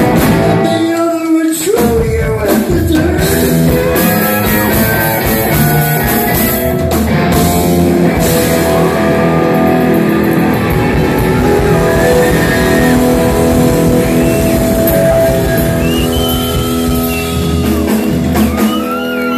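Live rock band playing loud: electric guitar, bass guitar and drum kit, with bending guitar or vocal lines over the top.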